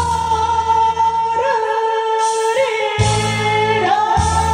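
A woman singing a Korean popular song through a microphone over instrumental accompaniment, holding long drawn-out notes with a wavering, trilled ornament in the middle. The low bass of the accompaniment drops out about a second in and comes back near the end.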